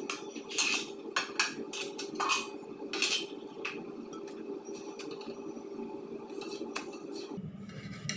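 Kitchen dishes and utensils clinking and knocking against each other and the counter as they are handled. There is a quick string of sharp clicks in the first three seconds and a few more near the end, over a steady low hum.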